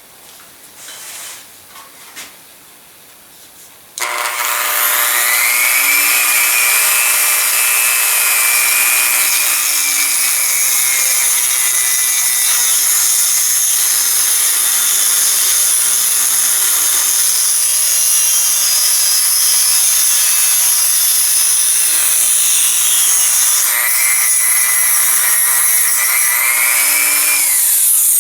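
A small high-speed rotary power tool cutting through an M3 steel machine screw to shorten it. It starts about four seconds in and runs steadily, its motor pitch sagging and recovering as it bites, then stops abruptly near the end.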